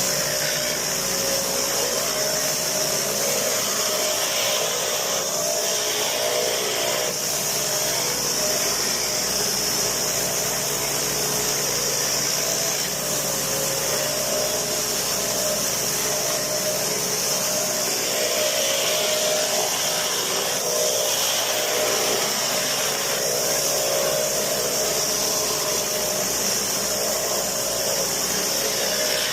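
Pressure washer running steadily, its high-pressure water jet hissing against concrete over a constant machine hum.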